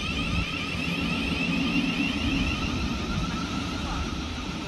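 Thameslink Class 700 electric multiple unit pulling away: a whine from its traction equipment, made of repeated rising glides, over a low rumble of wheels on rail. Both fade slightly as the train draws away.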